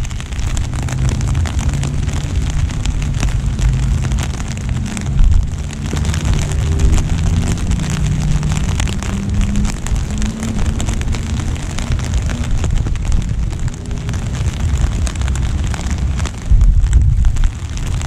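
Steady rain pattering on an umbrella and wet pavement, with a constant low rumble underneath that swells briefly about five seconds in and again near the end.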